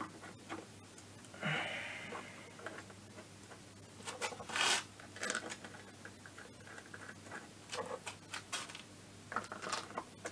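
Irregular light clicks and scrapes of small metal parts being handled as a reed valve and rubber intake manifold are fitted to a two-stroke scooter engine and their screws started by hand, with a louder scrape about four and a half seconds in.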